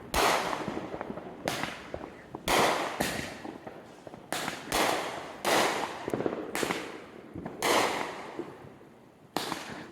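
Fireworks exploding one after another: about ten sharp bangs spread irregularly over the stretch, each with a tail that echoes and dies away over about a second.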